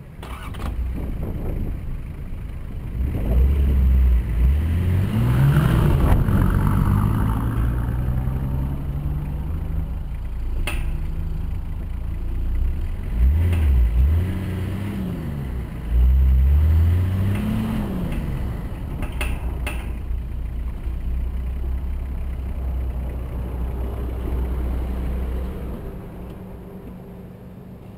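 Nissan Patrol's diesel engine driving over rough off-road ground. It revs up and eases off several times, the pitch rising and falling with the throttle, with a few sharp knocks along the way, and settles to a quieter steady run near the end.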